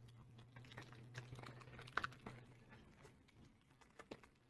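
Faint crinkling and clicking of a foil Pokémon booster pack wrapper being torn open and handled, with a sharper crackle about two seconds in and two small ticks near the end.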